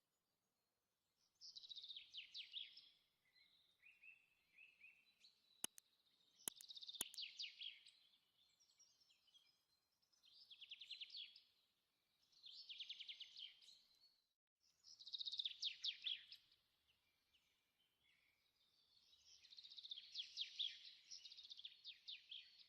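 A songbird singing faintly in a series of short trilled phrases, each about a second long, with pauses between them. Three sharp clicks come a little past the middle.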